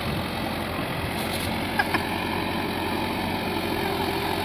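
Diesel farm tractor engine idling steadily.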